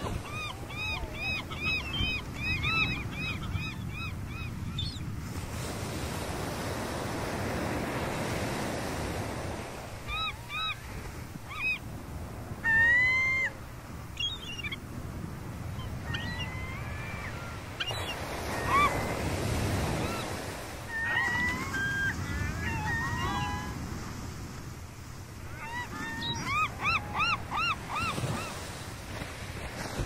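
Gulls calling in runs of short, arching cries, with one loud longer call about halfway through, over the steady wash of surf.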